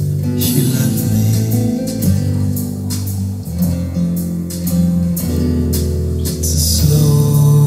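A song played back through large North American Sound studio monitor loudspeakers in a room: guitar over a strong, steady bass line with a regular beat, and no singing at this point.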